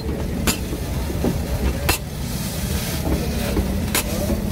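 Three sharp metal clacks of a steel spatula striking a hot flat griddle as a burger is pressed and toasted, over a steady low rumble.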